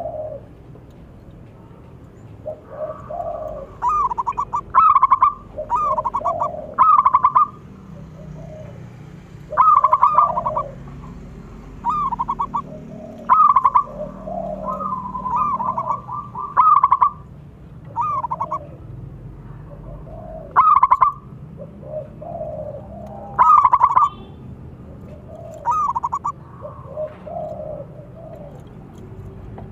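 Zebra dove (perkutut) cooing over and over: short rolling, stuttering coo phrases, about one every one to three seconds.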